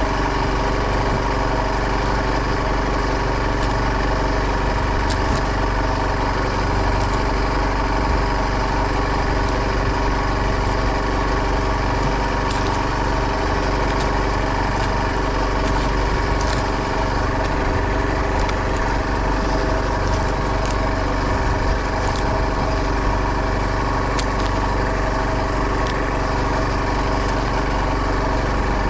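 Boat engine running steadily at an even speed, with a few faint ticks now and then.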